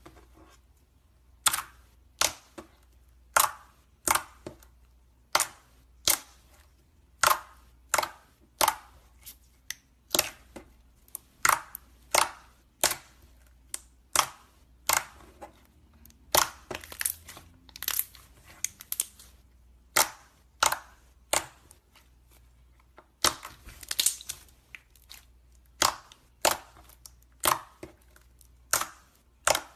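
Slime being squeezed and poked by hand, giving off a run of sharp, separate pops and crackles at an uneven pace of about one or two a second.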